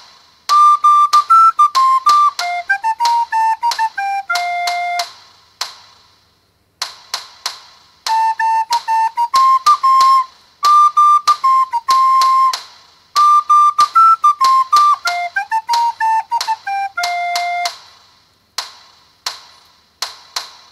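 Soprano recorder playing a baseball cheer-song melody in clear single notes, the phrase heard twice, over sharp percussive hits that keep the beat. In the gaps between phrases and near the end, only the hits are heard.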